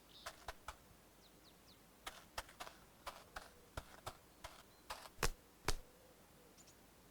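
A series of light, irregular clicks and taps, about two a second, the two loudest a little after five seconds in, with a few faint high chirps early on.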